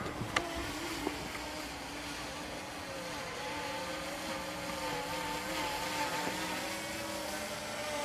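A small drone's electric motor and propeller buzzing overhead: a steady hum whose pitch wavers slightly. It comes in about a third of a second in and holds.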